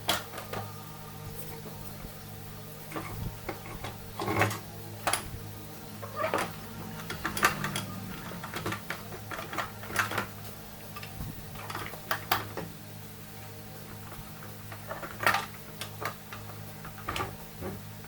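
Hand tools and metal parts clinking and knocking at irregular intervals during scooter rear-wheel and brake work, over a steady background of faint music.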